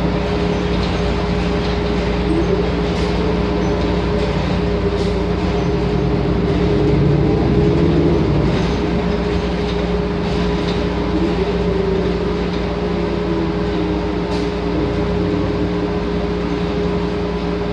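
Cabin sound of a 2015 New Flyer XN40 natural-gas city bus under way: its Cummins Westport L9N engine and Allison B400R automatic transmission drone steadily, the pitch rising and falling and swelling a little about halfway through. Occasional light clicks and rattles from the cabin.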